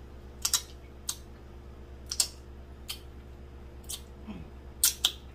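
Wet mouth smacks and sucking clicks as a man licks sauce off his fingers: about eight short, sharp smacks at uneven intervals. A brief low "mm" sounds near the end.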